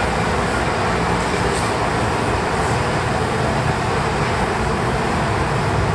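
Steady, even rushing noise with a low rumble underneath.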